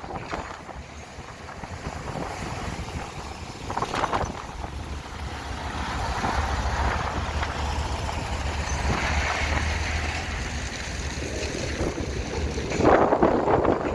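Excavator engine running with a steady low hum that strengthens in the middle, broken by two loud rushing surges, one about four seconds in and a bigger one near the end.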